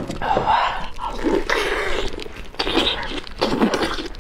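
A person chewing a mouthful of braised octopus close to the microphone, with wet, irregular mouth sounds.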